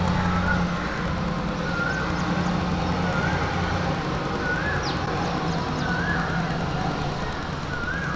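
Steady low hum of distant traffic, with a short rising-and-falling bird call repeated about every second and a half.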